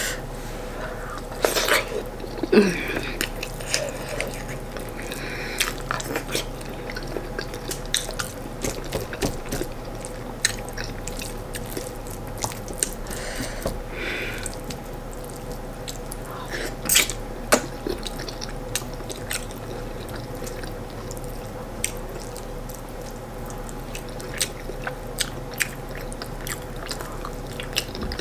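Close-up eating sounds: chewing with wet mouth clicks and smacks, scattered irregularly, as corn fufu and stewed chicken are eaten by hand. A faint steady hum runs underneath.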